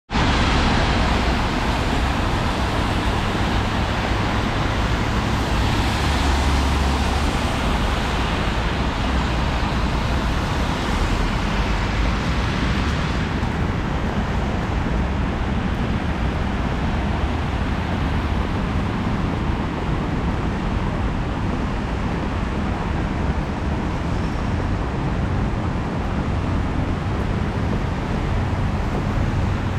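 Steady traffic noise from a busy multi-lane city avenue: cars and buses passing on a wet road. The high hiss eases about halfway through.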